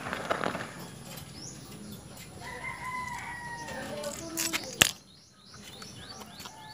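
A rooster crowing in the background: one drawn-out call near the middle. A sharp knock follows, from the phone being handled, and the sound goes briefly muffled.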